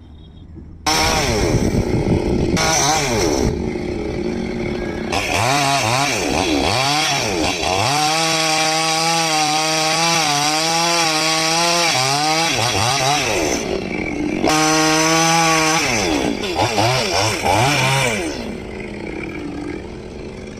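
Two-stroke chainsaw running and cutting wood, its engine pitch repeatedly dipping and climbing back under load, holding steady at high revs for a few seconds at a time. The sound drops out sharply for about a second near the start and eases off near the end.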